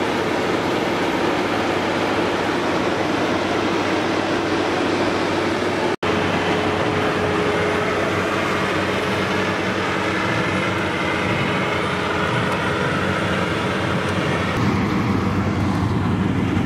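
Combine harvester running in a paddy field, a steady mechanical engine-and-machinery noise. It breaks off for an instant about six seconds in.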